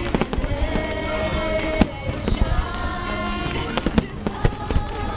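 Fireworks exploding overhead, several sharp bangs and crackles over a few seconds, with music with held notes playing underneath.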